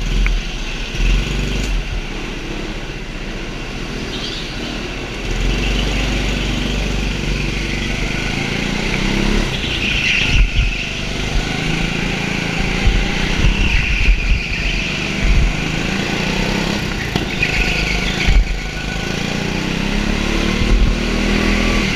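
Go-kart engine running, heard from the driver's helmet, its pitch rising and falling over and over as the kart speeds up and slows, with a heavy low rumble and knocks of wind and buffeting on the microphone.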